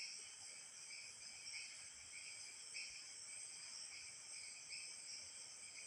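Faint chorus of insects: a steady high trill with short chirps repeating a little under twice a second.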